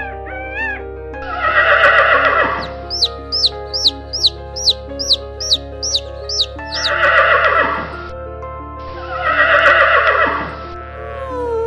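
Horse neighing in three loud calls, with a run of quick high chirps that slide downward between the first two, over steady background music.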